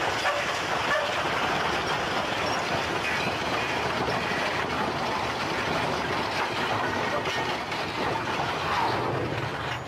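Passenger train in a full-scale crash test, its cars grinding and scraping through the collision: a dense, steady rumbling noise.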